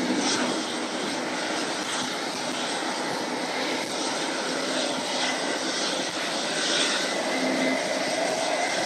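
Jet engines of a Boeing 777-200ER taxiing at low thrust after landing: a steady rushing engine noise with a faint whine, and a lower hum that grows louder near the end.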